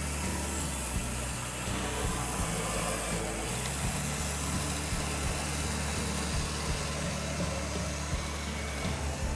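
H0-scale model freight train, an orange diesel locomotive hauling wagons, running along the track: a steady low electric hum with rolling noise and light clicks.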